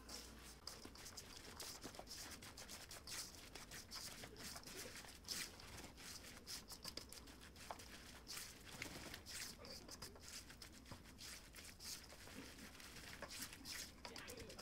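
A silicone spatula stirring mayonnaise-dressed shredded cabbage and carrot in a stainless steel bowl. The sound is a faint run of irregular scraping and rubbing strokes as the coleslaw is turned over against the bowl.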